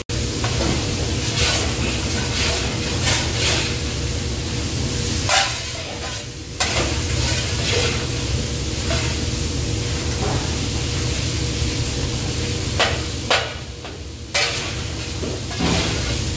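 Sliced onions and shredded carrots sizzling in a large wok while a metal spatula scrapes and tosses them in repeated strokes, over a steady low hum.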